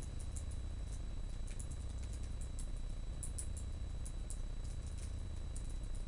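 Typing on a laptop keyboard with long fingernails: quick, irregular light clicks of nails and fingertips on the keys, over a steady low background hum.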